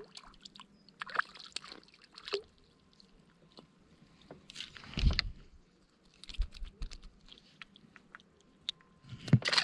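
A small fish splashing at the water's surface as it is lifted and swung in on a pole, then scattered clicks and rustles as it is handled and unhooked.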